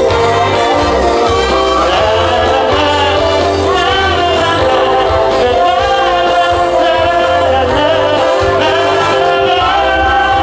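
Live pop song: a sung voice over a loud band backing track with a steady bass line.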